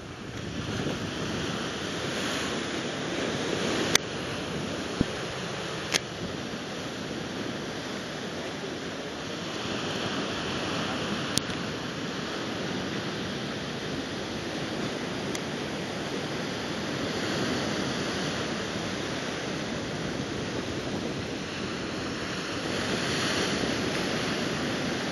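Ocean surf washing up the sand and around a rock, a steady rush that swells and eases as each wave comes in, with a few short sharp clicks.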